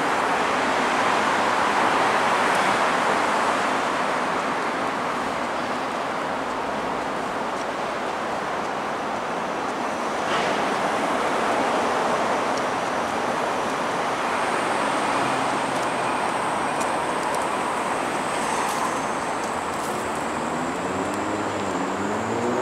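Steady hiss and rumble of road traffic on an elevated expressway, with a vehicle engine rising in pitch near the end.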